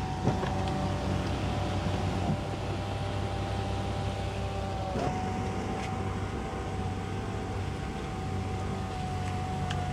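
Electric window sunshade motors in a Maybach 62 S rear cabin whining steadily as the shades move. One motor stops with a small click about five seconds in while the other keeps running, over a steady low hum.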